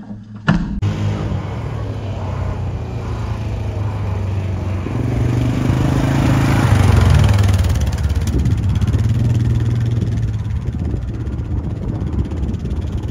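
Wheel loader's diesel engine running under load as it moves a wrecked race car, growing louder for a couple of seconds about halfway through and then holding steady.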